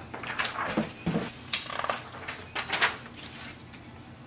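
A sheet of paper is handled and laid on the glass of a flatbed scanner, giving a quick series of crisp rustles and light taps in the first three seconds, then it goes quieter.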